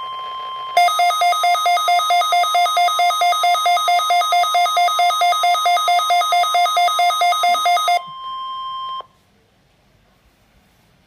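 NOAA Weather Radio warning alarm tone, a steady high tone sounding in its weekly test. From about a second in until near eight seconds, a receiver's alert beep pulses rapidly over it, about five beeps a second. The tone then cuts off suddenly, leaving faint hiss.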